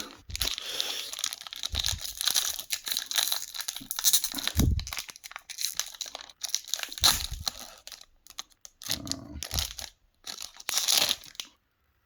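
Foil trading-card booster pack wrapper being torn open and crinkled in the hands, an irregular run of rustling and crinkling that stops abruptly about a second before the end, with a few soft low thumps of handling.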